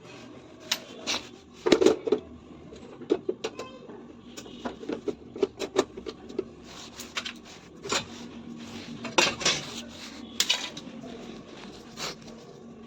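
Irregular metallic clinks and knocks of tools and metal parts being handled while a front-load washing machine's drum is dismantled, with the loudest strikes about two seconds in and a cluster near the end.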